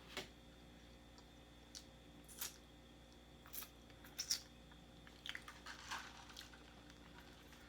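Faint mouth sounds of chewing a small piece of fried chicken dipped in sauce: scattered lip smacks and wet clicks about every second, coming more quickly about four seconds in.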